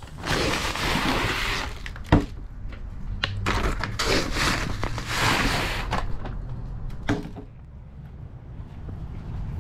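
Woven plastic feed bag crinkling and rustling as chicken feed is scooped out of it, in two long stretches, with a sharp knock about two seconds in and another about seven seconds in.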